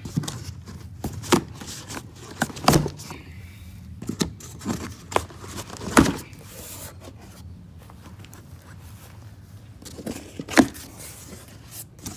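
A cardboard shipping box being opened and unpacked: irregular sharp knocks and snaps among tearing and crinkling of packaging, the loudest knocks about six seconds in and again near the end.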